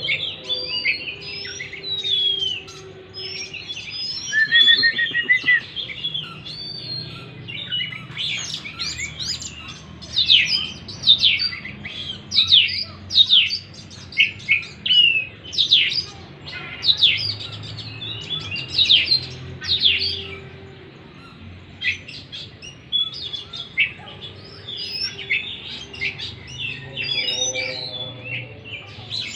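Oriental magpie-robin (kacer) singing a long, varied song of clear whistles and fast sweeping notes, with a quick run of sharp downward strokes in the middle. It is a lure song of the kind played to get a silent kacer to start singing.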